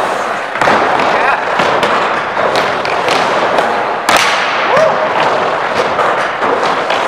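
Skateboard wheels rolling on a wooden vert ramp in a large hall, with repeated sharp clacks and bangs of the board and trucks striking the ramp and its coping. The loudest bang comes about four seconds in, as the skater works the coping.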